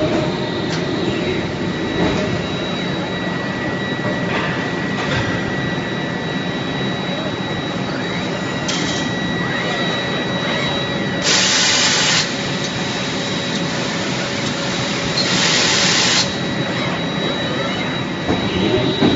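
Steady machinery din of a hub forging line, with a faint constant whine. Two short, loud bursts of hiss come about eleven and fifteen seconds in, each lasting about a second.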